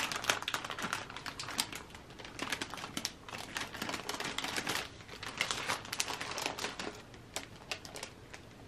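Clear plastic bag crinkling and crackling in irregular bursts as it is handled and pulled open.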